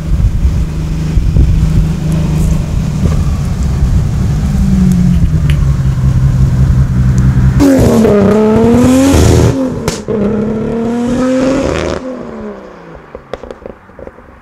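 Nissan Skyline R33 GT-R with a single-turbo 3.2-litre straight-six of about 800 hp, approaching under power with its engine note rising, then passing close about eight seconds in with a sudden louder, higher note and a rush of hiss. The note then falls and fades as the car drives away.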